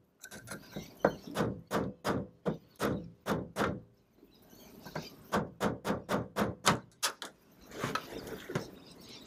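Hammer blows on the end of a screwdriver used as a drift against the corroded steering helm shaft, working a part that corrosion has stuck: a steady run of sharp metallic taps about three a second, a short pause, then a quicker run of taps.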